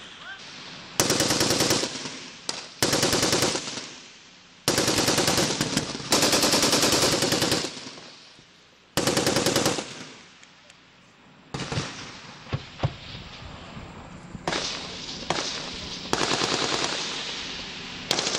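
Machine-gun fire in repeated bursts of rapid shots, each about a second long, with echoes rolling off between them. Around the middle the bursts give way to a few single, sharper shots before the long bursts resume.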